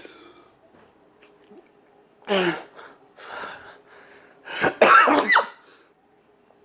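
A man's choking spasm: several harsh, cough-like gasps as he squeezes air past a throat shut by the spasm. The loudest, about five seconds in, has a squeaky, wheezing pitch that bends up and down.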